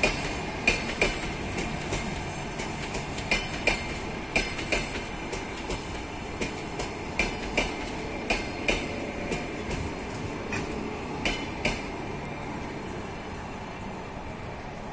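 Double-deck passenger coaches rolling past, their wheels clicking over rail joints in quick pairs above a steady rolling rumble. The clicks stop near the end and the noise fades as the last coaches go by.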